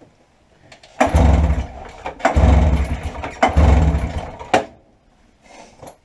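Two-stroke twin engine of a 1990 Arctic Cat Jag snowmobile pull-started three times in a row: each hard pull on the recoil starter cranks the engine over for about a second, but it does not catch and keep running.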